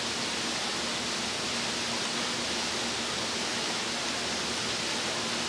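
Steady, even rushing noise with a faint steady hum underneath, with no distinct events.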